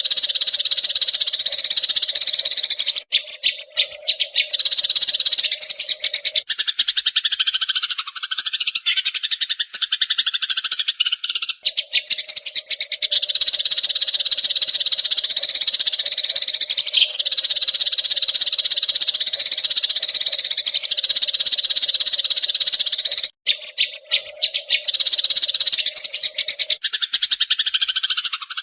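Eurasian tree sparrows chirping in a dense, continuous chatter. It breaks off briefly about three seconds in and again near the end.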